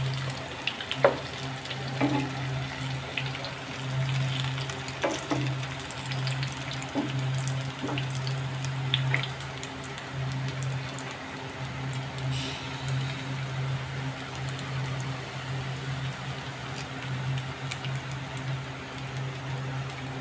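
Pakoras of goat brain and ground chana dal deep-frying in a pan of hot oil: a steady bubbling sizzle with scattered crackles and pops, over a steady low hum.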